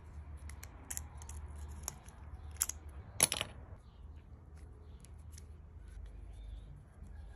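Small metallic clicks and clinks of kerosene-stove burner parts being handled and worked with a metal tool, with one louder, brief scrape about three seconds in.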